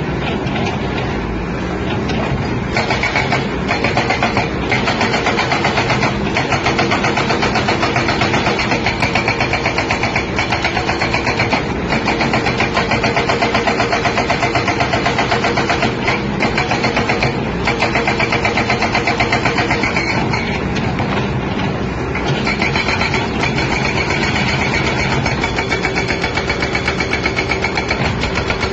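SB81 hydraulic breaker on a 20-ton excavator hammering in rapid, even blows over the excavator's running diesel engine, with a few short pauses.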